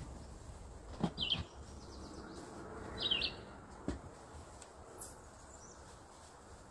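A small bird chirping twice, short high chirps about two seconds apart, with a few faint light clicks.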